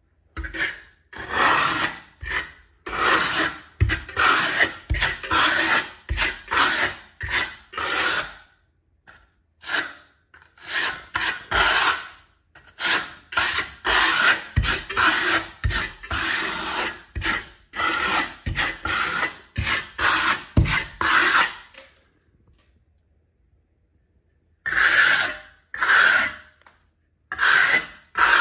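Steel plastering trowel scraping over a wall coated in fine marmorino lime plaster, working it in quick back-and-forth strokes of about two a second. The strokes stop for a few seconds near the end, then start again.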